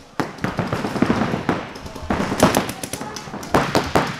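Paintball markers firing in rapid, irregular strings of shots, with the sharpest cracks about two and a half and three and a half seconds in.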